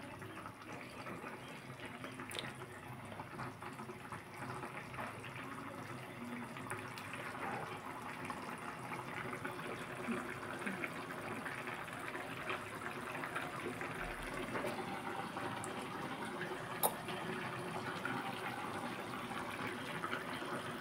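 Chicken curry bubbling as it simmers in an open pan: a steady crackle of small pops that grows slightly louder, with one sharp click late on.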